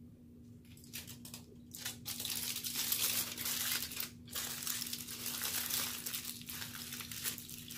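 Aluminium foil food wrapper being crinkled and folded by hand, starting about a second in, with a brief pause about four seconds in.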